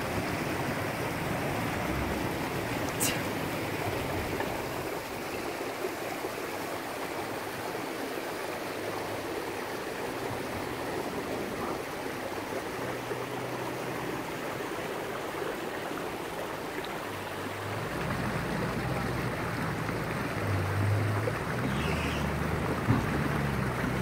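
A river rushing over rocks, with a four-wheel-drive Toyota LandCruiser ute wading through the water. Near the end the engine's low drone grows as the vehicle climbs out onto the rocky bank.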